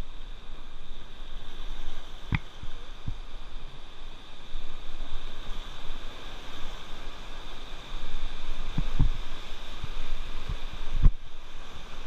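Steady rush of river water with wind buffeting the microphone, broken by a few dull low thumps.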